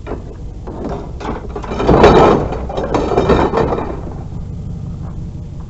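Clattering and scraping of junk being pulled and shifted by hand in a pile of curbside debris. It is loudest from about two seconds in for a couple of seconds, then dies down over a steady low hum.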